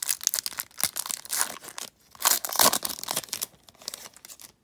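Wrapper of a baseball card pack crinkling in the hands, then ripped open with a loud tear about two seconds in, followed by fainter crinkling.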